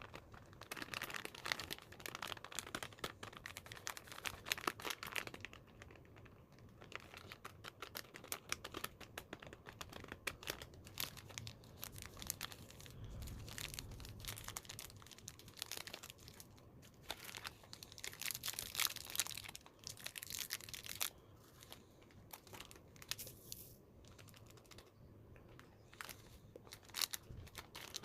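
Candy wrappers and packaging being crinkled, rustled and torn open by hand, in uneven bursts of rustling and clicks with short quieter pauses.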